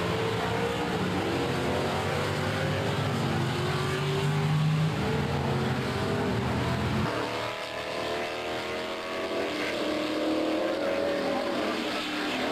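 Vintage Can-Am sports racing cars' engines accelerating as they pass, several at once, their pitch rising again and again through the gears.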